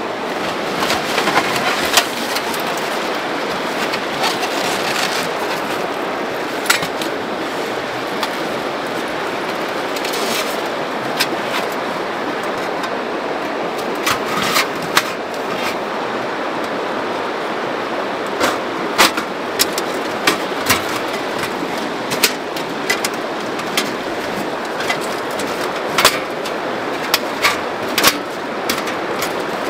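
Scattered metal clinks and knocks as a small stainless wood stove is handled and set in place on a canvas mat, with some rustling of the canvas. A steady rushing noise runs underneath.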